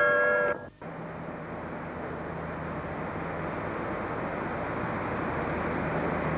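The last notes of a station announcement chime cut off about half a second in. Then comes a steady rumble with a low hum from a distant approaching train, growing slowly louder.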